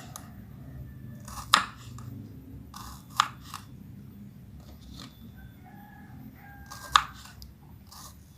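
Knife cutting crisp bilimbi fruit into pieces on a cutting board, with three sharp knocks of the blade on the board at uneven intervals, about 1.5, 3 and 7 seconds in.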